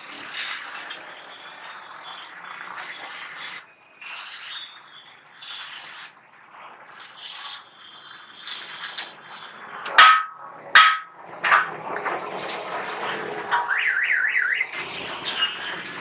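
Adhesive strip and stickers being peeled off their backing and pressed onto the geyser's sheet-metal body, in short hissy rips. Two sharp taps come about ten seconds in, and a brief warbling electronic tone sounds near the end.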